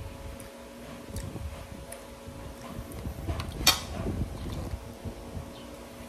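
Cutlery and dishes clinking as people eat: a few light clicks, with one sharper clink about three and a half seconds in, over a steady low hum.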